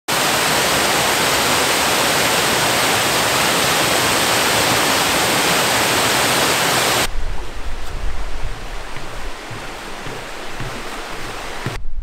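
Waterfall rushing, a dense steady roar of falling water. About seven seconds in it cuts abruptly to a quieter, duller rush of water with a low rumble, which stops just before the end.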